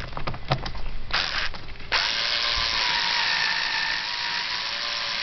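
Power drill/driver driving a screw into the air filter box cover: a few clicks and a brief spin, then about two seconds in the motor runs steadily at one speed.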